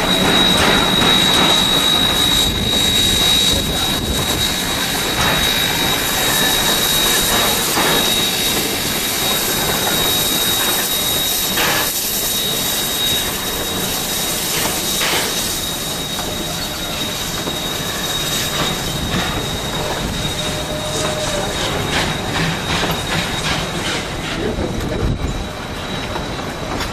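Narrow-gauge steam train rolling past on a curve, its wheel flanges squealing on the rail in one steady high tone, strongest in the first half and fainter later, over the rumble of the wheels and scattered clicks at the rail joints.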